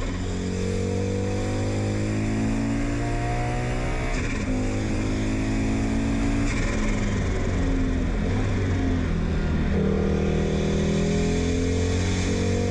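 Audi Quattro rally car's turbocharged five-cylinder engine, heard from inside the cabin, running hard. The pitch climbs and falls back sharply about four and six and a half seconds in, wavers for a few seconds, then climbs again near the end.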